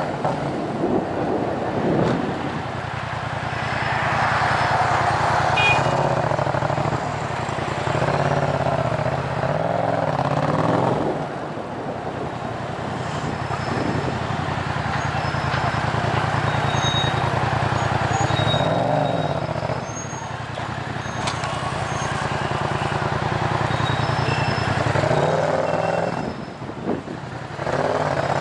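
Yamaha MT-07's parallel-twin engine through a loud Tiger full exhaust system with decat headers, running at low speed in traffic. It holds a steady low note, broken by several short throttle blips.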